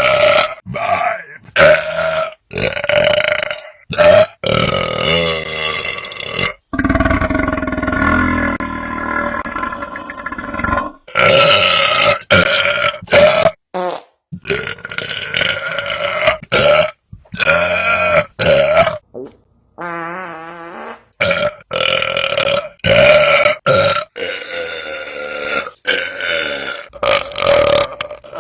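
A rapid string of loud, drawn-out human belches, one after another, many several seconds long with a steady pitch, each cut off abruptly into the next.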